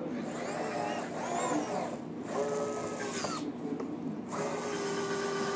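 Small electric motors and gearboxes of a 1/14-scale RC D6H bulldozer whining in several short runs that start and stop, their pitch bending, then running steadier in the second half.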